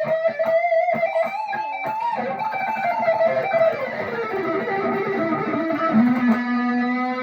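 Electric guitar lead on a Squier Classic Vibe '50s Stratocaster partscaster with Wilkinson pickups. It opens on a held note with vibrato, runs down quickly through a string of notes, and settles on a held low note about six seconds in.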